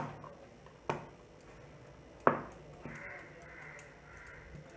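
A hand-held stone pestle striking boiled raw jackfruit fibres on a wooden chopping board, lightly crushing them. It gives a few sharp knocks at uneven intervals, the loudest about two seconds in.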